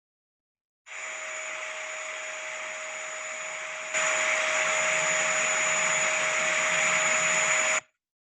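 Vacuum cleaner running: a steady whooshing hum with a constant whine. It gets louder about four seconds in and cuts off suddenly near the end.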